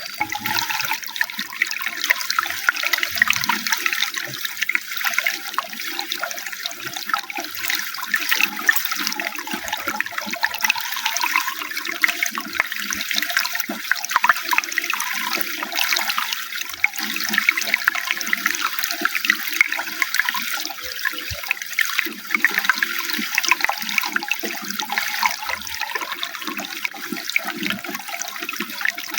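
Running water flowing steadily, a continuous rush with many small splashes and no break.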